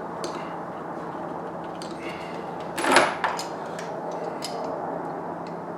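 Light clicks and knocks of intake parts being handled, with one louder scrape about three seconds in, over a steady hiss.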